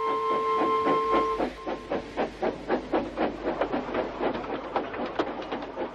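Steam locomotive running, its exhaust chuffing in an even rhythm of about five beats a second. Held music notes sound over it and stop about a second and a half in.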